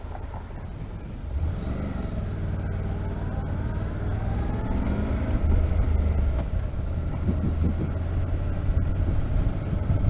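Honda NC700X's parallel-twin engine pulling away from a stop, its pitch climbing over a few seconds as it accelerates and then holding steady, heard from the rider's helmet microphone.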